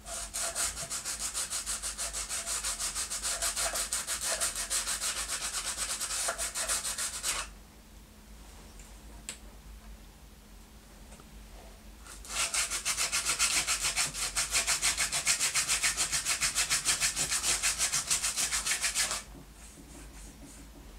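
Hand sanding with a piece of sandpaper, smoothing the rough bare-wood sides of an electric guitar body's control cavity: rapid back-and-forth rasping strokes in two long bouts, with a pause in between.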